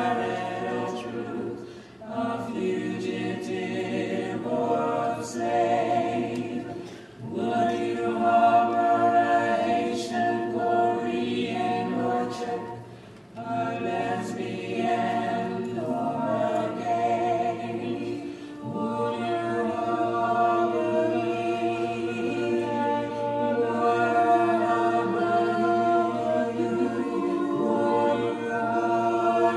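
Choir singing sustained phrases in several voice parts at once, with short breaks between phrases about 2, 7 and 13 seconds in.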